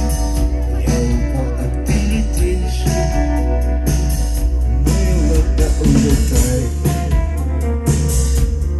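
Rock band playing live, with guitar, bass and drums.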